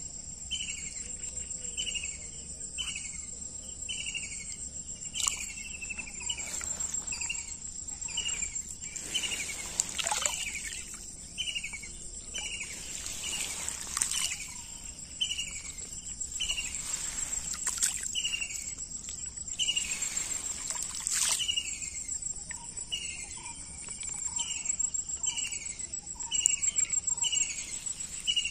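Riverside outdoor sound: insects trilling steadily on a high pitch while a bird repeats short falling chirps about every half second. A few brief swishes of water are heard as the net is moved through the river.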